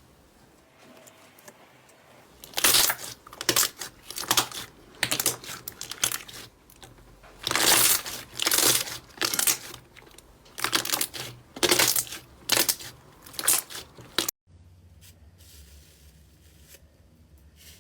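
Slime being squeezed and worked by hand: a string of short, noisy bursts at about one a second, some longer than others. Near the end it cuts abruptly to a much quieter stretch.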